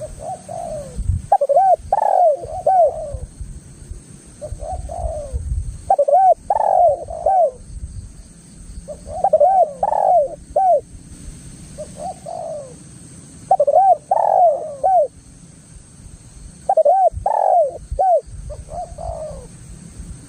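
Spotted dove cooing: five phrases about four seconds apart, each a quick run of rising-and-falling coos, over an intermittent low rumble.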